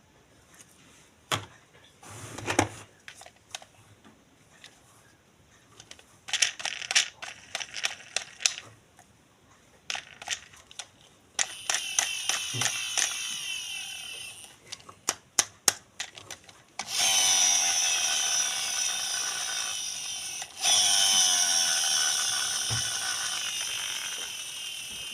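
Clicks and rattles of plastic toy parts being handled, then a battery-powered toy's motor whirring, briefly at first and then in two long runs with a short break between them.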